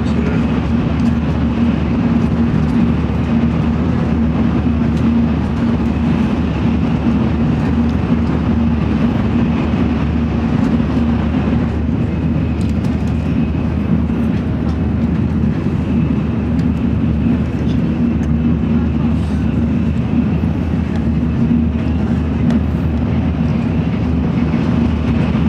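Steady cabin noise of a Tokaido Shinkansen bullet train running at speed, heard inside the passenger car: an even rumble with a constant low hum.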